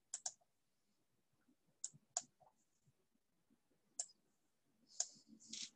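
Computer mouse clicking with near silence between clicks: a quick double click at the start, another pair about two seconds in, then single clicks at about four and five seconds.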